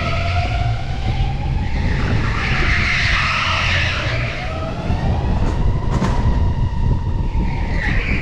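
Electric go-kart's motor whining from onboard, its pitch rising and falling as the kart speeds up and slows for corners, over a steady rumble of the kart on the track. A stretch of tyre squeal comes about two to four seconds in.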